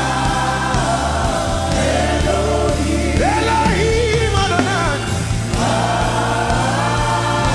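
Gospel worship music: a choir singing held chords over steady bass notes, with a lead voice singing a bending melody in the middle.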